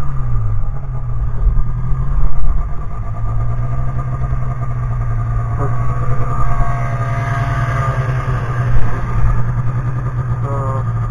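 Snowmobile engine running while riding along a packed trail. Its pitch dips briefly near the start, then holds steady.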